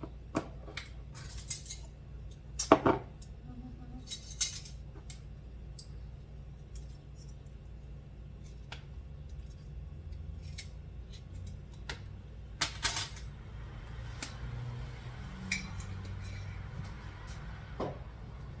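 Measuring spoons and spice containers clinking and tapping as seasonings are measured out, with scattered knocks, the loudest about 3 and 13 seconds in, over a low steady hum.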